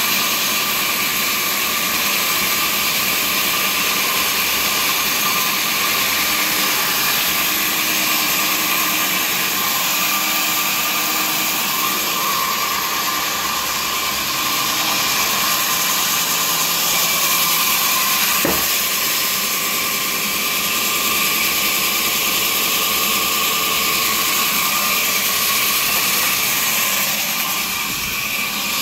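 Sawmill machinery running steadily, a loud even machine hum and hiss with a single brief knock about two-thirds of the way through.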